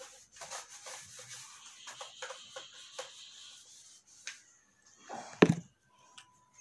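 A whiteboard being wiped with a handheld eraser: a run of short scratchy rubbing strokes, then a loud knock about five and a half seconds in.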